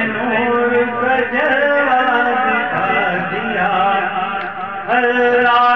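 A man singing a naat, an Urdu devotional poem to the Prophet, in a chanted melody with long held, bending notes; it dips briefly and comes back louder about five seconds in.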